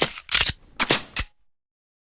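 Gun sound effects: four short, sharp cracks in about a second and a quarter, then silence.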